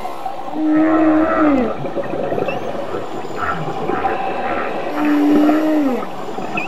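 Whale calls: two long calls about four seconds apart. Each is a held tone that bends down in pitch at its end, over steady background noise.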